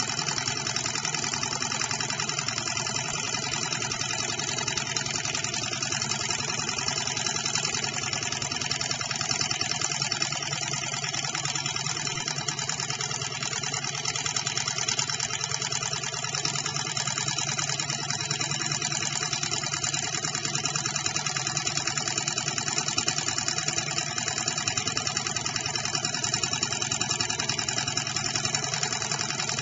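Small model hot-air Stirling engine running steadily on a burning fuel tablet: a rapid, even mechanical clatter from its piston and flywheel linkage.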